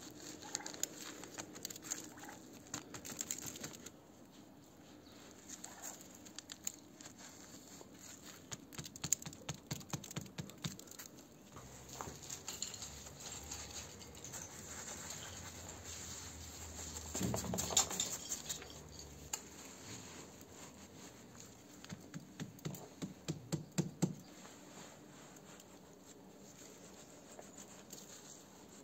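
Masonry work: a small trowel scraping and tapping wet cement mortar, and stone bricks being set and pressed into place, giving a run of small scrapes, grits and clicks. The scraping comes in louder spells past the middle.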